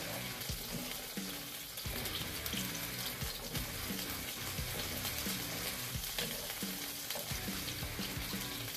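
Sliced mushrooms frying in oil in a pan, sizzling steadily and spitting, while a wooden spatula stirs them.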